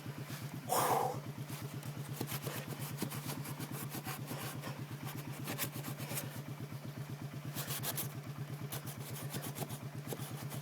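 ATV engine idling steadily, with the short rasping strokes of a Leatherman multi-tool's small saw blade cutting through a tree trunk on top.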